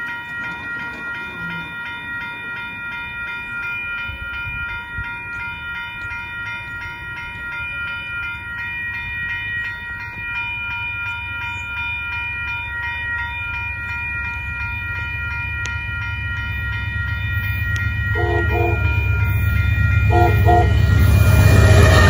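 Railroad crossing bell ringing steadily while an Amtrak passenger train approaches, its rumble growing louder. A few seconds before the end it gives two short horn blasts, and the GE P42 diesel locomotive arrives at the crossing loudly.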